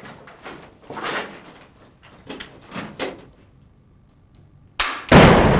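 Knocks and scuffs of a soldier moving about with gear in a bare concrete room, then about five seconds in an 84 mm AT4 CS confined-space anti-armour launcher fires: a short crack followed at once by a very loud blast whose noise carries on.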